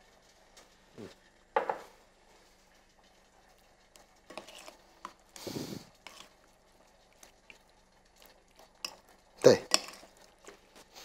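Metal spoon clinking and scraping against a glass mixing bowl as cubed veal is tossed with oil and spices: scattered knocks with quiet gaps, the loudest about a second and a half in and again near the end.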